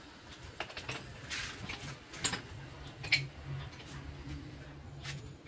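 Scattered metallic clinks and taps of hand tools, the two loudest about two and three seconds in, over a faint low steady hum.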